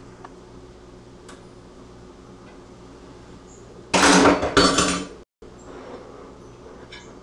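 Plates and cutlery clattering on a kitchen counter: a few light clicks, then a loud clatter in two bursts lasting about a second that cuts off suddenly.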